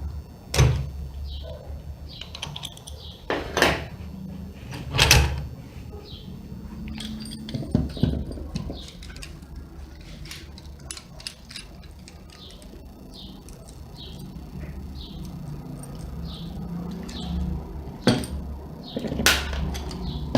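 Bearing puller being turned by hand to draw a shattered ball bearing off an angle grinder's armature shaft: a few sharp metallic knocks and clicks scattered over a low steady hum.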